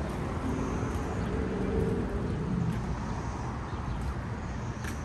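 Steady low rumble of road traffic passing, with a sharp click near the end.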